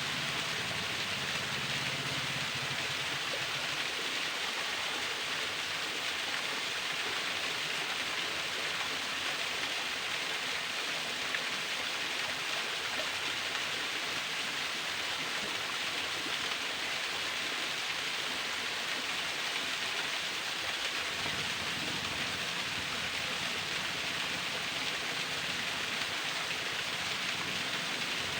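Thin waterfall splashing steadily: an even, unbroken rush of falling water.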